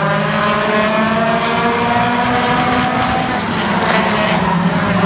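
Several stock car engines running as a pack circles the oval, their engine notes overlapping, with one note slowly rising in pitch over the first few seconds.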